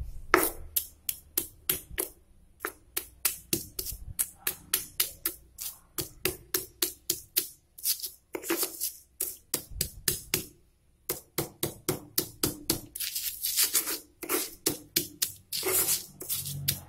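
A stone pestle pounding garlic cloves and salt in a stone mortar (cobek and ulekan): a steady run of sharp knocks, about four a second, with a few short pauses.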